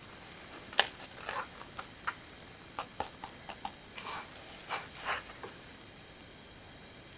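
Plastic slotted spatula knocking and scraping against a frying pan while a fried egg toast is folded in half and lifted: a scatter of sharp clicks and short scrapes, the sharpest a little under a second in, trailing off after about five and a half seconds.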